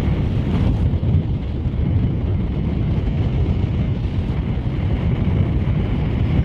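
Wind buffeting the microphone in a steady low rumble, over the wash of choppy water in the shallows.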